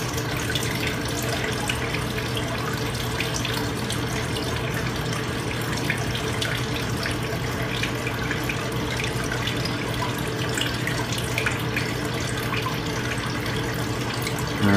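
Water running steadily into a blue bowl concentrator and swirling around the bowl in a vortex, with a low steady hum underneath.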